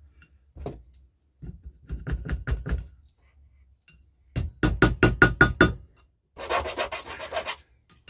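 Small hammer tapping a freshly soldered silver tube to round it: three quick runs of light metal-on-metal strikes, about six a second. The middle run rings briefly after each strike.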